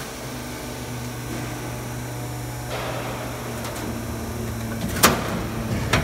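Noise barrier panel roll forming machine running with a steady low hum, the sound growing busier a little under three seconds in. About five seconds in there is one sharp metallic bang, with a smaller knock just before the end.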